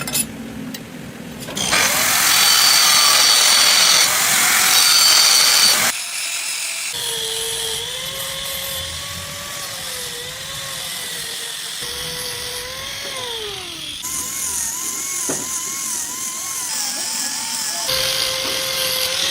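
Metalworking machines in a workshop across several quick cuts: a loud harsh grinding or cutting noise, then a machine's motor whine that wavers in pitch and slides down as it slows.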